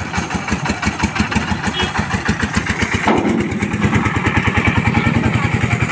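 Small engine of a loaded goods cart running with a rapid, even chug of about ten beats a second. Its note shifts and it gets louder about halfway through as the cart pulls away.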